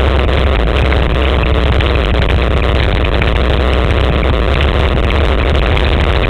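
Quad bike engine running steadily at speed on a dirt track, under heavy wind rumble on a helmet-mounted action camera.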